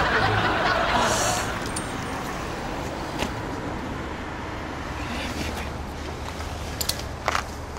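Audience laughter dying away over the first second or so, giving way to a quieter steady hum of night-time street traffic, with a few sharp clicks near the end.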